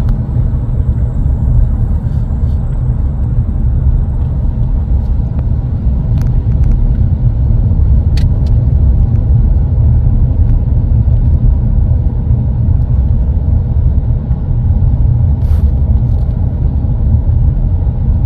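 Steady low road rumble of a car being driven, heard from inside the vehicle, with a few faint ticks; it cuts off abruptly at the end.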